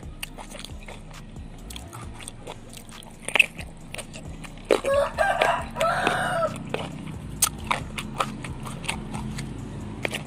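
A rooster crows once near the middle, one drawn-out call of about two seconds that rises, holds and falls. Around it, close-up mouth sounds of biting and chewing raw leunca berries, with small clicks and crunches.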